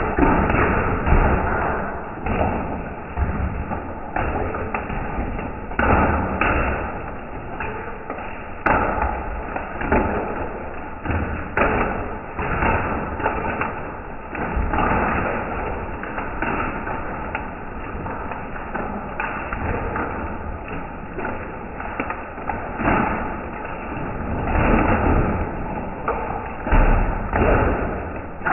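Hailstones pelting a wet concrete patio: a continuous dense clatter of small impacts with deeper thuds mixed in.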